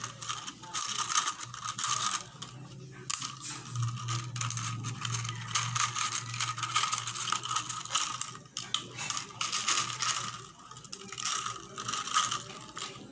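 Thin green plastic soft-drink bottle, cut into strips, crackling and clicking irregularly as fingers bend and press it, over a low steady hum.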